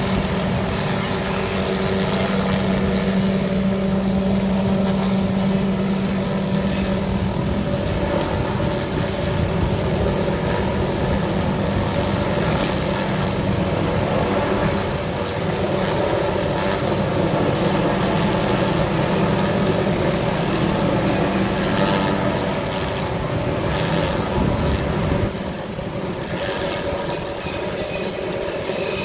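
Helicopter hovering while it works a suspended aerial tree-trimming saw: steady rotor and engine drone with a constant hum, dropping a little in loudness near the end.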